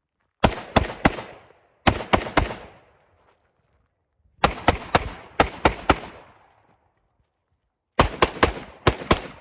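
Semi-automatic rifle fired rapidly in strings, each shot trailing off in echo: three shots, a pause, three more, then two longer strings of about seven shots at three to four a second.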